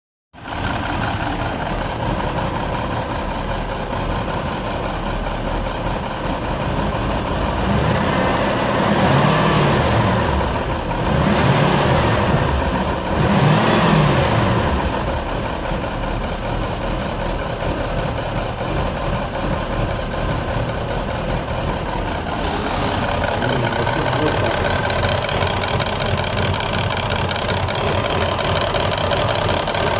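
Toyota 2UZ-FE V8 running hot with a knock, idling and revved up and back down about three times in the middle. The knock shows once the engine is at operating temperature.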